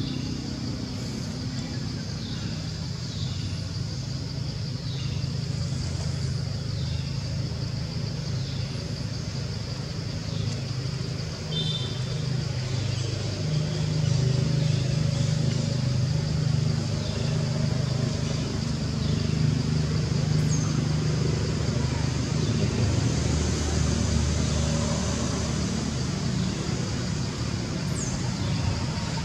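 Steady low rumble, like a motor vehicle running nearby, growing louder about halfway through, under a steady high-pitched hum.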